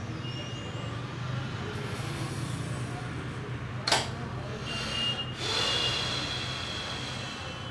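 Steady low room hum, with one sharp click about four seconds in and a short rustling stretch soon after.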